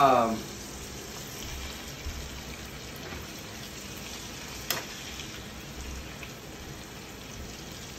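Marinated chicken thighs sizzling steadily in a frying pan while being turned over with tongs, with a sharp click about halfway through.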